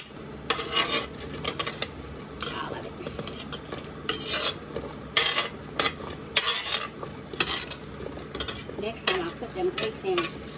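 Metal slotted spoon clanking and scraping against a large stainless-steel stockpot as cut fruit is pushed in, in irregular strokes about once or twice a second over a steady low hum.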